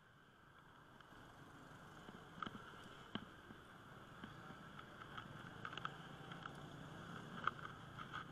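Faint street riding noise from a bicycle moving among motor scooters: a steady low hum of traffic with scattered sharp clicks and rattles, the sharpest about three seconds in and again near the end.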